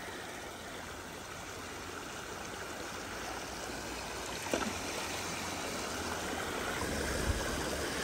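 Mountain stream flowing over rocks, a steady rushing of water, with one brief faint knock about halfway through.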